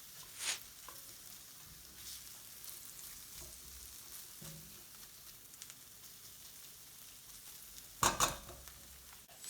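Onion-and-spice masala frying on medium-low heat, sizzling softly while it is stirred. A utensil scrapes against the pan about half a second in, and louder scraping comes near the end.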